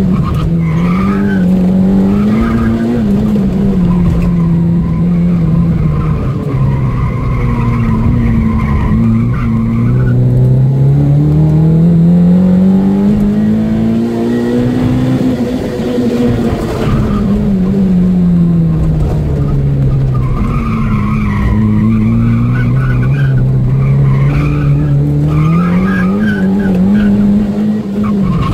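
Opel Astra GSi engine at full effort through a lap, heard from inside the cabin: the engine note swings up and down through the tight corners, climbs steadily for about six seconds along the straight, then drops under braking. The tyres squeal through the corners at the start and again in the second half.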